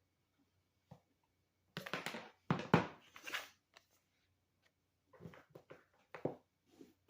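Handling noises as the tablet, its charger and packaging are worked with by hand: a single click about a second in, then about two seconds of rustling and scraping, then a few light clicks and taps near the end.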